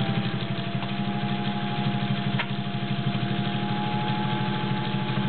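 Singer 201-2 sewing machine's potted motor running at steady speed, stitching through five layers of denim with a fast, even stitch rhythm. There is a brief click about two and a half seconds in.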